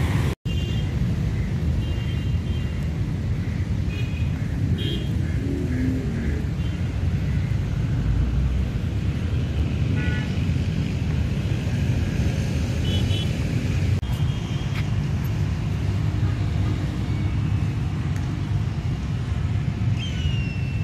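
Steady background rumble of road traffic, with faint short higher sounds coming and going over it. The sound cuts out for an instant just after the start.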